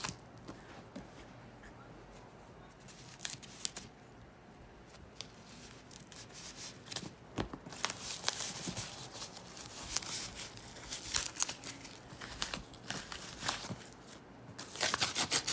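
Tissue-paper wrapping and tape being pulled and torn off a leather handbag's handle straps: intermittent crinkling and tearing, sparse at first, busier through the middle, with a loud burst of crackling near the end.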